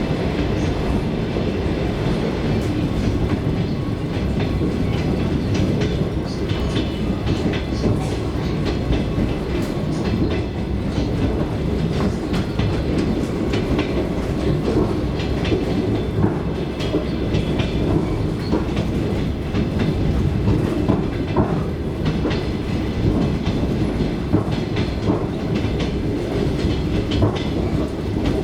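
Suburban passenger train in motion, heard from inside the carriage: a steady running rumble with the clickety-clack of the wheels over the rail joints.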